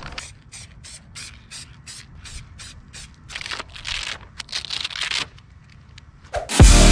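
Aerosol spray paint can spraying over a stencil in short bursts of hiss, about three a second, then a few longer sprays. Loud electronic music cuts in near the end.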